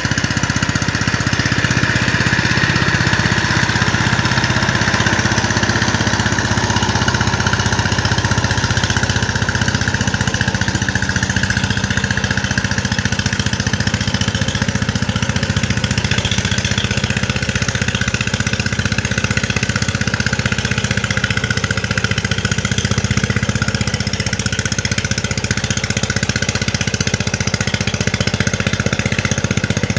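Walk-behind power tiller's single-cylinder diesel engine running steadily as the tiller ploughs through deep paddy mud on cage wheels.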